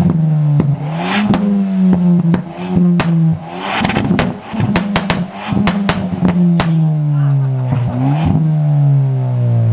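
Car engine revved hard and held at high revs, with a run of sharp cracks in the middle, then dipping, flaring once more, and falling away near the end.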